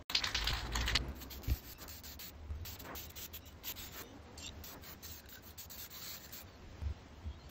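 Aerosol spray paint can hissing as paint is sprayed onto a plastic console part, with a few light knocks in the first second as the part is handled.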